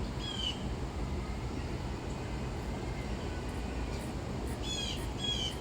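Blue jay calling in the background: one short call near the start and two more near the end, over a steady low rumble.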